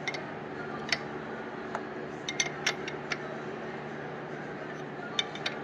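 A combination wrench clinking against nuts and studs as nuts are tightened on an aircraft engine's accessory case: scattered sharp metallic clicks, a cluster of them in the middle and two more near the end, over a steady low hum.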